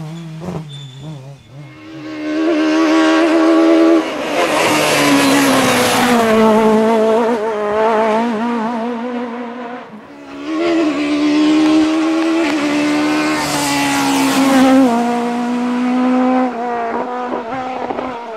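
Peugeot 306 Maxi Kit Car rally car engine at full throttle, the note climbing and then stepping down at gear changes, in two loud runs with a brief lull near the middle.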